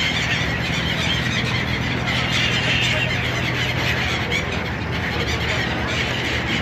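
Many gulls calling at once, a dense overlapping chatter of high cries, over a steady low hum from a boat's engine.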